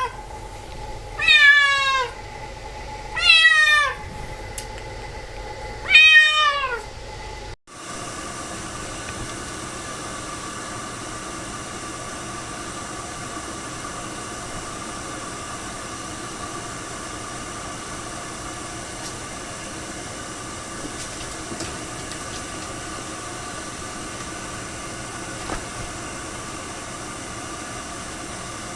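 Ragdoll cat meowing three times, each call starting high and falling in pitch. It then cuts off suddenly, and a steady whirring noise with a faint hum runs on.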